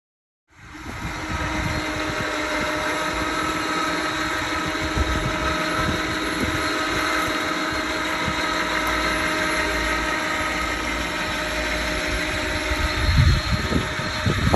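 Hunting truck's engine idling steadily, a constant hum with a few held tones. A few low bumps come near the end.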